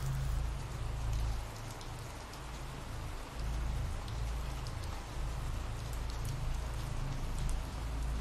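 Steady rain falling, with scattered drop ticks and a deep low rumble underneath that swells and eases every second or two.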